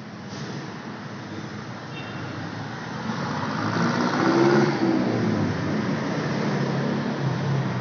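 A motor vehicle's engine running nearby, growing louder over the first few seconds, loudest about four and a half seconds in, and staying loud to the end.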